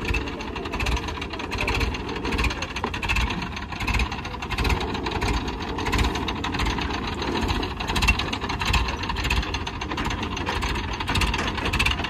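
Diesel engine of an ACE 12XW pick-and-carry crane running steadily with a regular low throb while the crane holds a piling tool on its hook.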